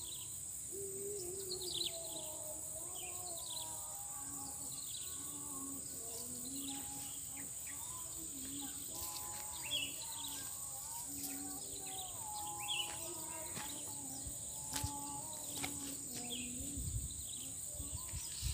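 Steady high-pitched insect drone with many short bird chirps over it. A faint murmur like distant voices sits underneath, with a few soft clicks.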